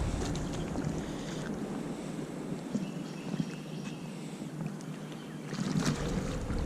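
Water splashing and sloshing as a hooked catfish is brought into a landing net, with a louder flurry of splashing near the end. Wind buffets the microphone at the start.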